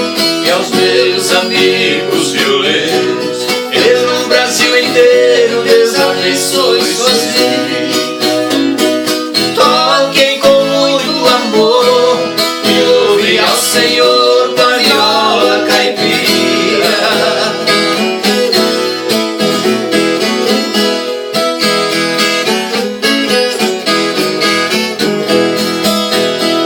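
Instrumental ending of a Brazilian caipira song, led by plucked viola caipira with band accompaniment, playing many quick notes.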